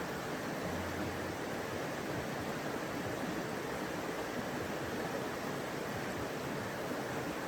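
River water flowing: a steady rushing noise with no breaks.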